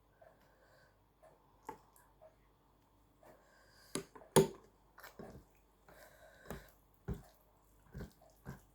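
Close-miked eating of rice and potato-eggplant curry mixed with yogurt: wet chewing and mouth smacks in short irregular bursts, with one sharp click about four and a half seconds in.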